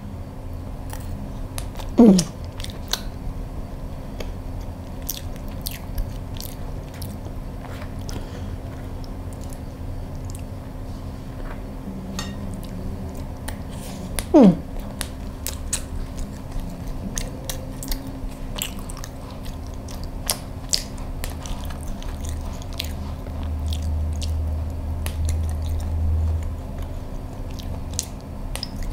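Close-miked chewing and small wet mouth clicks of someone eating soft cheese sponge cake topped with salted egg and pork floss. Twice, about two seconds in and again around the middle, there is a short falling hum of the voice.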